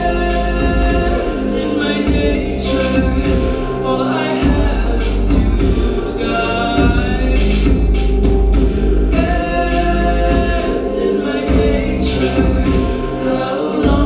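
Live song: a man's voice singing long held notes into a microphone over music with a steady deep bass.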